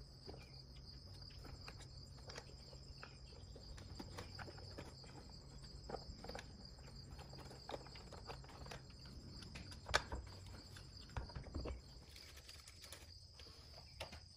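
Faint, steady high insect trill in the background, with scattered small clicks and knocks from wires and a plastic light fixture being handled and pushed onto a wall bracket. The sharpest click comes about ten seconds in, followed by a few more just after.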